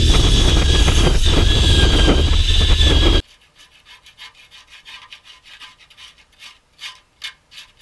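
A power tool runs steadily with a high whine and cuts off abruptly about three seconds in. After that come faint, irregular scraping strokes as the rusty steel moustache bar is cleaned down.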